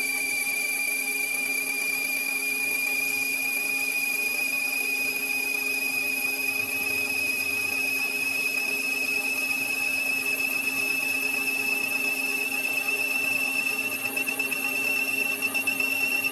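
Machine tool running while cutting a Delrin cam lobe, with a steady high whine that rises slowly in pitch and a low hum underneath.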